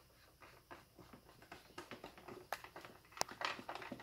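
Plastic blaster housing being handled and fitted together, giving scattered light clicks and taps, with one sharp click about three seconds in.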